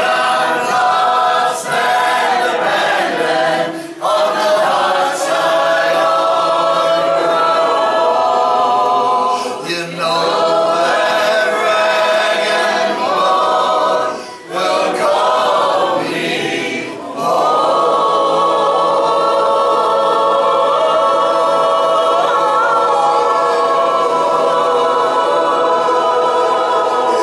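A group of voices singing together in harmony, in phrases with short breaks, then holding one long chord for about the last ten seconds.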